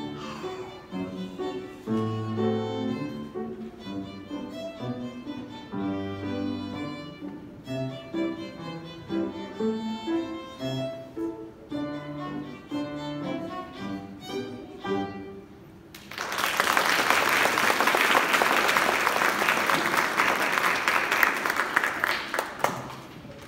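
A violin played with grand piano accompaniment, the piece coming to its close about sixteen seconds in. Audience applause follows for about seven seconds.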